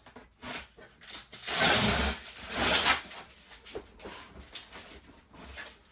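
Cardboard box being opened: two long tearing, scraping rushes as tape and flaps are pulled apart, with lighter rustling and knocks of handling around them.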